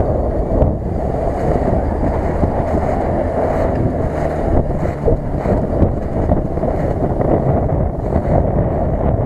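Daihatsu Feroza's engine running as the small SUV drives down a snowy slope and across flat snow, heavily masked by wind buffeting the microphone.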